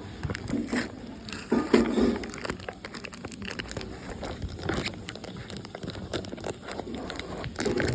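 Plastic and cardboard packaging of a diecast toy car set being handled, crinkling, with scattered clicks and taps.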